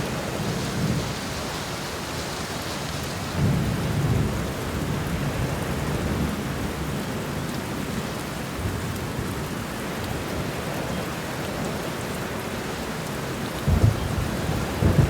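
Steady rain with rolling thunder: a low rumble swells about three and a half seconds in, and sharper, louder thunder claps come near the end.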